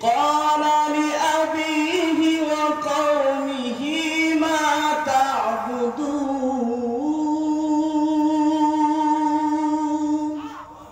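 A man reciting the Quran in the slow, melodic tilawat style into a microphone. It is one long phrase with winding pitch turns that settles on a long, steady held note, then fades out near the end.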